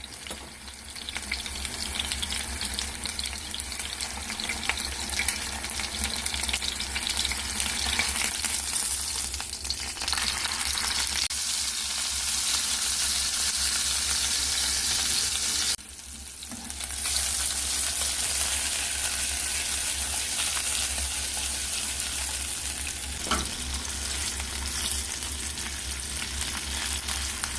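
Steak sizzling and crackling as it fries in a pan, with a brief drop in level about halfway through.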